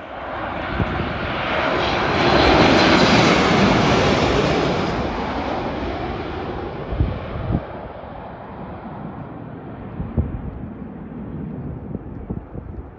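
Boeing 737 MAX 8 jet airliner with CFM LEAP-1B turbofans passing on landing: its jet noise swells to a peak a few seconds in, then fades steadily as the aircraft moves away down the runway. A few brief low thumps come in the second half.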